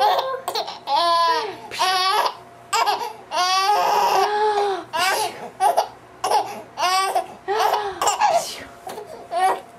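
A baby laughing in repeated high-pitched bursts, in response to a game of peekaboo.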